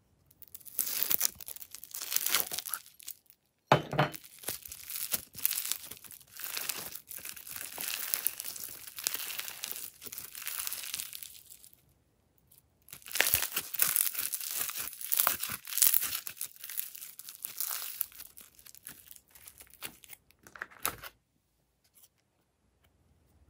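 Foam-bead slime crackling and crunching as it is squeezed and pulled apart by hand, in three long stretches with short pauses, and a sharp knock about four seconds in.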